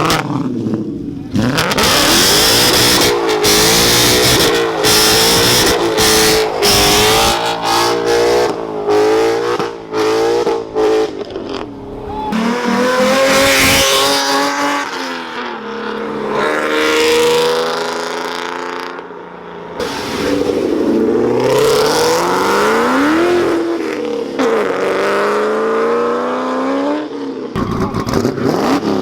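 A run of short clips of Ford Mustangs' engines revving and accelerating hard, the engine pitch climbing and dropping again and again, with abrupt cuts from one car to the next.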